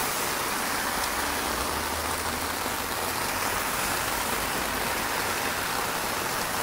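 Steady rain falling, an even hiss with a faint low rumble underneath.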